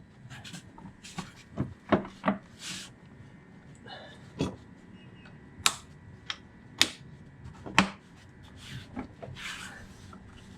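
A part being fitted back into a car's engine bay by hand, with the engine off: a string of irregular sharp clicks and knocks, with short rubbing or scraping sounds in between as it is pushed into place.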